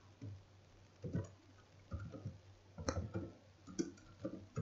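Computer keyboard keystrokes: light, irregular clicks, a few a second, as text is typed.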